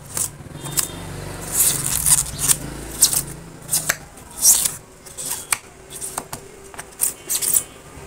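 Rigid foam insulation being scraped and cut away from a refrigerator's back with a hand tool: a rapid, irregular series of short, sharp scratchy scrapes.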